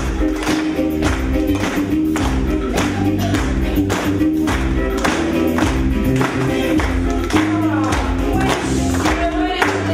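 Dance music with a steady beat, about two strokes a second, over a bass line.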